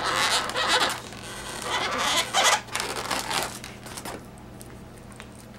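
Permanent marker drawing on an inflated latex balloon: several short rubbing, squeaky strokes in the first two and a half seconds, then softer rustling of hands on the balloon latex as the figure is turned.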